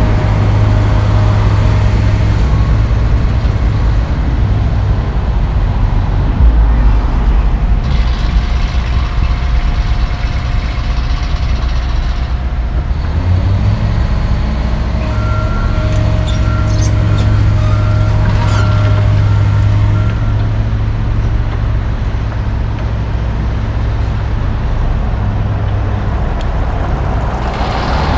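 Large diesel engines of a John Deere 470G track excavator and a waiting dump truck running steadily under load while the excavator digs and loads the truck. A hiss of released air comes about a third of the way in, and a faint repeating beep sounds for several seconds past the middle.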